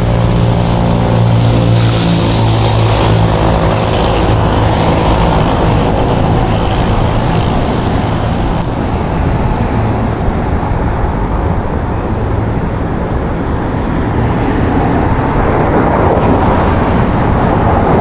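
Roadside traffic noise: a vehicle engine's steady hum fades away over the first few seconds, leaving a continuous rush of passing traffic.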